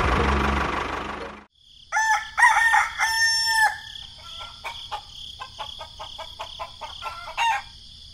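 A loud motor-like running noise cuts off about a second and a half in; then a rooster crows, followed by a run of short clucking calls over a steady high chirring of insects.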